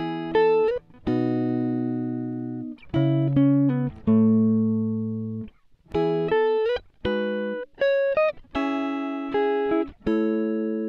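Background music: a slow melody of single plucked-string notes, each starting sharply and ringing away.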